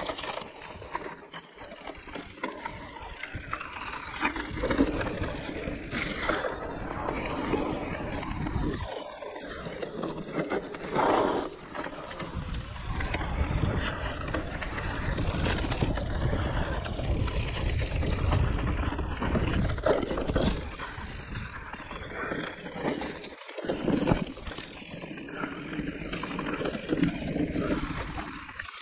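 Mountain bike ridden down a rough enduro trail: uneven tyre rolling noise over the ground, with knocks and rattles of the bike over bumps.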